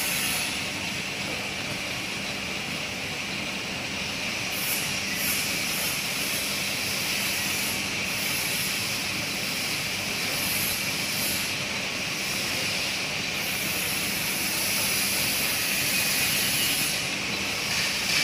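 Steady hum and hiss of factory machinery running, with a low steady drone underneath and short high hisses now and then.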